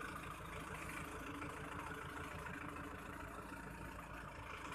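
Tractor's diesel engine running steadily under load as it hauls an overloaded sugarcane trolley.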